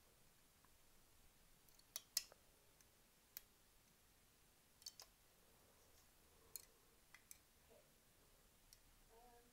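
Faint, scattered plastic clicks and taps of a hook tool against the clear pegs of a rubber-band loom as bands are hooked and looped over, about eight in all, the loudest a pair about two seconds in.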